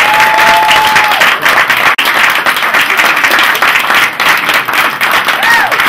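Audience applauding: dense hand clapping, with a few voices calling out over it, one held call at the start and another near the end.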